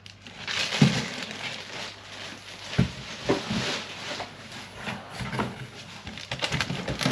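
Plastic packaging rustling and crinkling as parts are unpacked from a box, with a few light knocks as pieces are handled.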